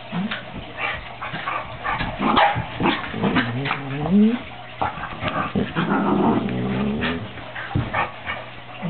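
A pit bull and a border collie puppy play-fighting: growls, whines and short yips mixed with scuffling. A rising whine comes about four seconds in, and a longer low growl follows a couple of seconds later.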